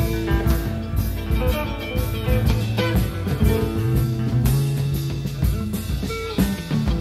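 Live rock band playing: electric guitar lines over bass guitar and drum kit, in a 1970s concert recording.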